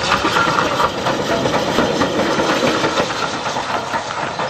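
Steam locomotive working past: a loud, rapid run of exhaust beats over a hiss of steam.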